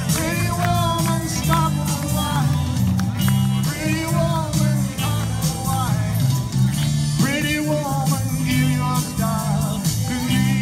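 Live rock and roll: electric guitar and singing over a steady bass line and drum beat.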